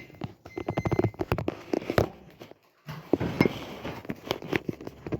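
Footsteps and kitchen handling noises: a quick run of short clicks and knocks, pausing briefly midway before more knocks.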